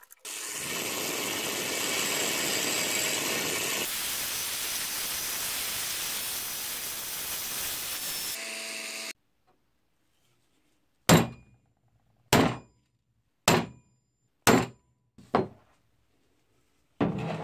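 A power tool grinding steel steadily for about eight seconds, grinding the end of a cast-iron meat grinder crank handle's pivot flat. Then, after a pause, five sharp hammer strikes on metal about a second apart, each ringing briefly, and one more near the end.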